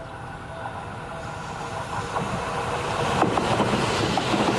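Seibu Railway commuter electric train approaching and passing close by, its running noise growing steadily louder. Its wheels click sharply over rail joints twice in the second half.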